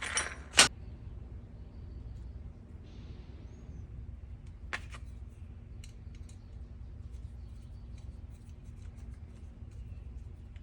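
Small metal parts and hand tools being handled during bench reassembly of a starter motor: a brief scrape then a sharp click about half a second in, another click near the middle, and scattered faint ticks over a low steady hum.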